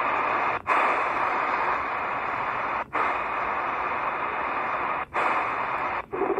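Steady shortwave static hiss from a Tecsun PL-330 receiver's speaker, tuned to a weak, near-empty frequency. The hiss cuts out briefly four times, the last as the radio steps to the next stored channel.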